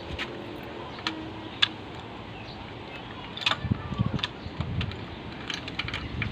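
Scattered sharp metal clicks and clinks of hand tools and engine parts being handled during timing gear and chain work. From about three and a half seconds in there are irregular low knocks and rustling.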